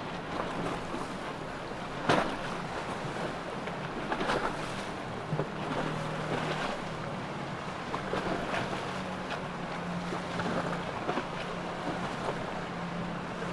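Motor yacht running at speed through choppy water: a low, steady engine drone under the rush of water and spray, with the bow slapping through waves now and then, loudest about two seconds in. Wind noise on the microphone.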